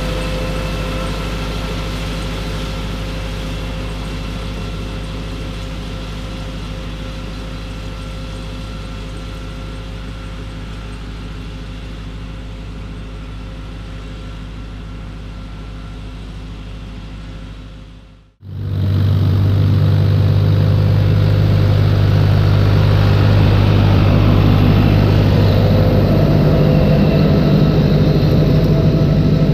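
John Deere tractor's diesel engine running steadily as it pulls a Deutz-Fahr KM 22 CR mower through grass. The engine fades slowly as the tractor draws away. About 18 seconds in, the sound jumps to much louder and closer.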